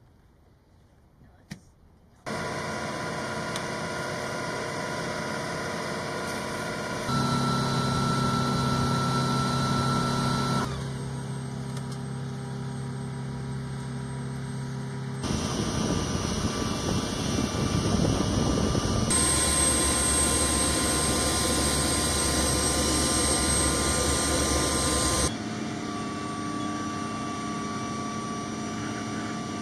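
Steady flight-line machine noise of turbine and engine units around HH-60 Pave Hawk helicopters, a constant hum with several high whining tones. It changes abruptly every few seconds, and the first two seconds are near silent.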